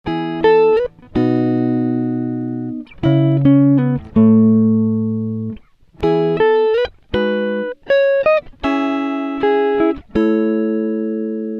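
Background music: a run of held chords, each ringing for a second or two before cutting off abruptly.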